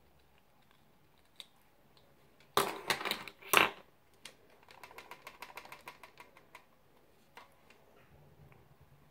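Kitchen utensils clattering against a plastic mixing bowl full of cake batter: a short burst of loud rattling knocks about two and a half seconds in, then a run of lighter, quick clicks and taps.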